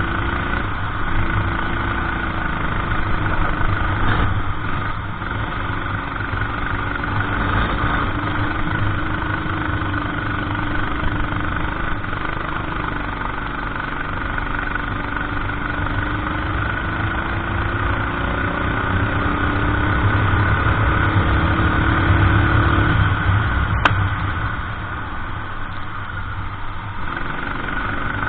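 Kart engine heard onboard during a race, its pitch rising and falling as the driver accelerates and lifts through the corners.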